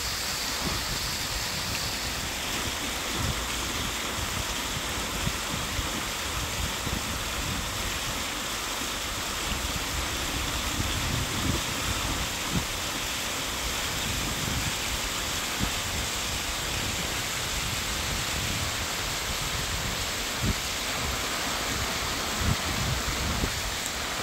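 Water cascading down a stepped reservoir spillway: a steady rushing hiss. Irregular low thumps from wind buffeting the microphone run through it.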